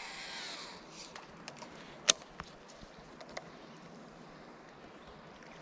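Fishing rod cast: a brief swish of rod and line through the air near the start, then a single sharp click about two seconds in, with a few faint ticks around it.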